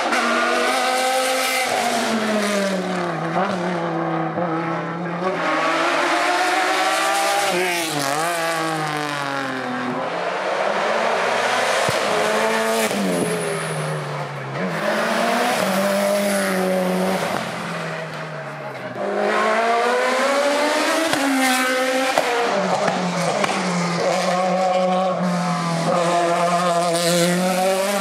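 Hillclimb racing car engines at full throttle. The pitch climbs through each gear and drops sharply on the shifts, with quick blips on downshifts about eight seconds in and again about twenty-one seconds in. There is a short lull just before the engine sound comes back loud.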